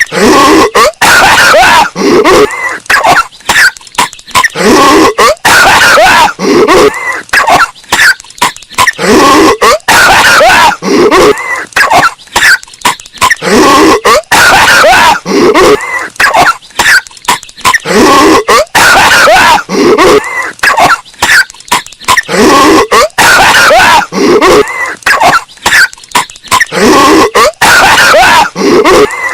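Patrick Star's cartoon coughing fit, looped over and over and bass boosted until it is loud and distorted, with a burst of coughs about every two seconds.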